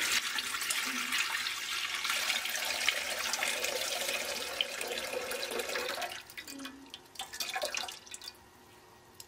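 Milk pouring in a steady stream from a plastic packet into an empty stainless steel pot. The pour thins to a few drips and splashes about six seconds in and stops about eight seconds in.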